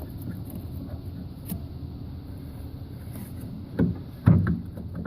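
Metal clunks from the mower's drive pulley being fitted back onto its splined shaft: a light click, then two heavy knocks about half a second apart near the end, over a steady low rumble.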